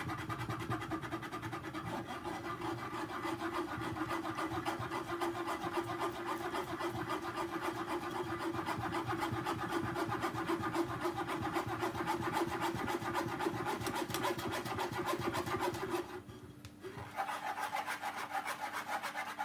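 Metal spoon scraping rapidly and repeatedly against a fine-mesh metal sieve, pressing blended juice pulp through the strainer. The scraping stops for about a second some sixteen seconds in, then starts again.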